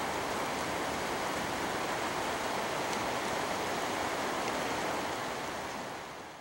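Steady rushing noise with no clear source, fading out near the end.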